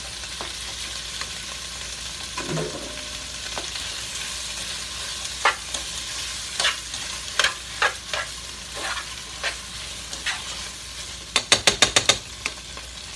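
Onions, green pepper and tomato paste frying in a pot with a steady sizzle, stirred with metal tongs that click against the pot. Near the end comes a quick run of about seven sharp clicks.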